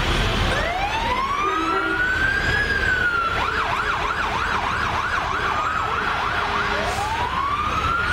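Electronic emergency-vehicle siren on a passing rescue truck: a rising wail, then about three seconds of fast yelp, then another wail rising near the end, over a low rumble.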